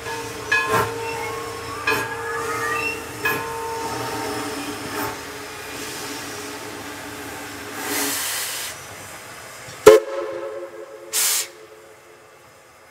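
East Broad Top No. 18, a narrow-gauge 2-8-2 steam locomotive, working with a steady tone and a series of sharp clanks, then a burst of steam hiss. A sudden loud bang about ten seconds in is followed by a lower steady tone and a short hiss before the sound fades out.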